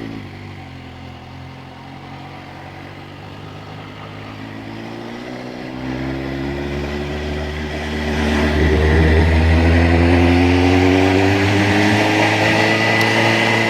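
Suzuki GSR 750's inline-four engine breathing through an aftermarket silencer with its baffle fitted, riding off: the exhaust note rises gradually in pitch and grows louder from about six seconds in and again at about eight as it accelerates.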